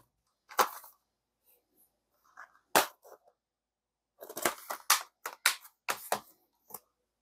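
Disc cases being handled: a metal steelbook case and a plastic 4K UHD keepcase clicking and clacking as they are opened, shut and set down. Separate sharp knocks with short silent gaps, the sharpest about three seconds in and a quick cluster of clacks in the second half.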